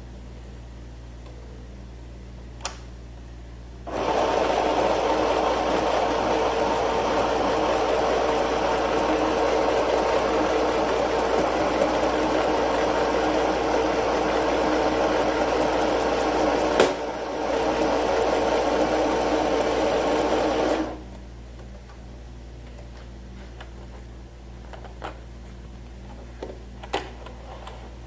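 Sewing machine running steadily as it stitches cloth, starting about four seconds in and stopping after about seventeen seconds, with a sharp click and a brief pause near the middle. A few light clicks of handling before and after.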